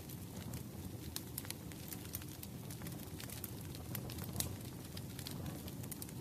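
Firewood burning in a brisk fire: a steady low rumble of flame with frequent, irregular sharp crackles and pops, one louder pop a little past the middle.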